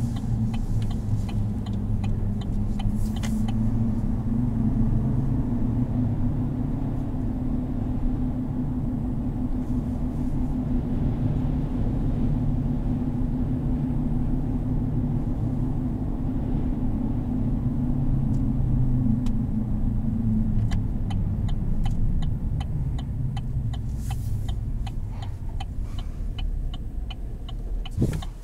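Cabin sound of a Chevrolet Silverado 1500 pickup driving: a steady low rumble of engine and tyres on the road, with a droning note that fades about two-thirds of the way through. A regular faint ticking is heard near the start and again over the last several seconds.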